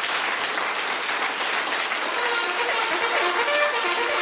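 Studio audience applauding loudly; about halfway through, a trumpet starts playing a quick run of short notes over the clapping.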